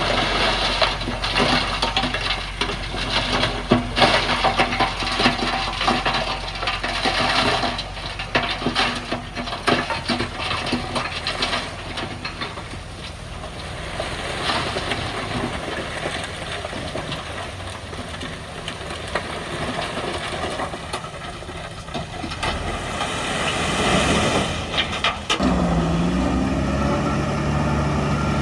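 Heavy diesel earthmoving machinery at work: an engine running under the crunch and clatter of soil and rock for roughly the first twelve seconds, then a steadier engine sound. About 25 seconds in, the engine note dips and settles at a new pitch.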